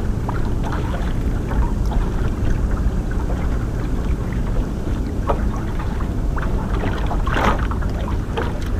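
Wind buffeting the microphone over water slapping against a small aluminium boat's hull, with scattered small clicks and knocks. A brief louder rush about seven and a half seconds in.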